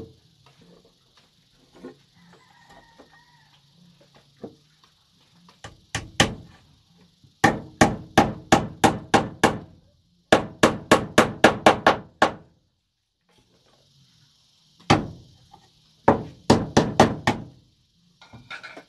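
Hammer nailing a small circuit breaker to a wooden wall, in quick runs of light blows at about four a second: a couple of blows, two long runs of eight or nine, a single blow, then a shorter run near the end.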